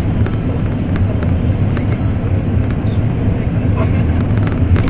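Steady low rumble of an N700 series Shinkansen, heard from inside the passenger cabin as the train runs along the line.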